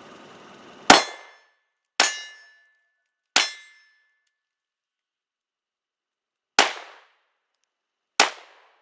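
Five 9mm pistol shots from a Glock 19: three about a second apart, a pause of about three seconds, then two more further apart, each followed by a short metallic ring. The first three are fired strong-handed and the last two weak-handed.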